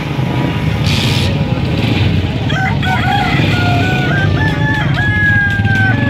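A rooster crows about two and a half seconds in, ending on a long held note, over a steady background rumble of crowd and traffic. A short hiss comes about a second in.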